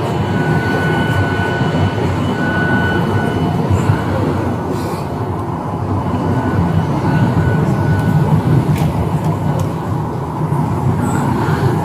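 Steady low rumble and hum of a parked Boeing 737's cabin air system heard inside the cabin, with a faint high whine that comes and goes.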